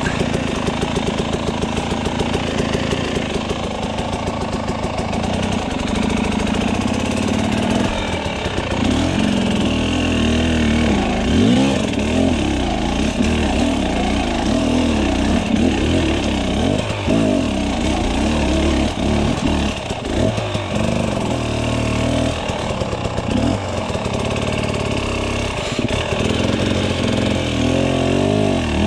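Husqvarna TX300 two-stroke dirt bike engine, running steadily at low revs for several seconds, then revving up and down again and again as the bike picks its way over rocks and roots on the trail.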